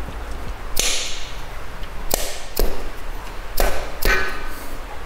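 A socket wrench clacking on steel main bearing cap bolts as they are run down on a bare engine block. About five sharp metallic clicks and knocks are spread through it.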